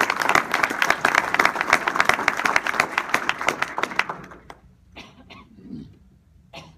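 Audience applauding: many hands clapping in a dense patter that dies away about four seconds in, followed by a few faint scattered clicks.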